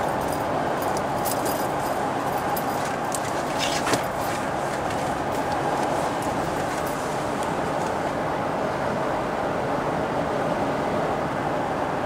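Steady road and engine noise heard from inside a moving truck's cab while driving, with a few light ticks in the first few seconds.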